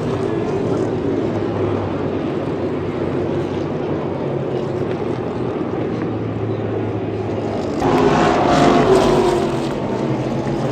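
Race car engines running on the track as a steady drone, with one car passing close about eight seconds in, louder and dropping in pitch as it goes by.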